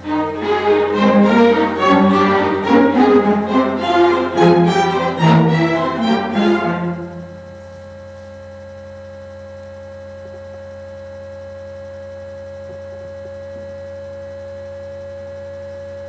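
A string orchestra of cellos and violins plays a passage of distinct notes, which breaks off suddenly about seven seconds in. After that only a steady hum remains.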